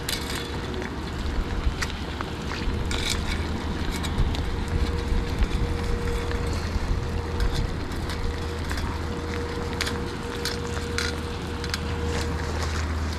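Wind buffeting a phone's microphone in drizzle: a steady low rumble under an even hiss, with scattered sharp taps and a faint steady hum.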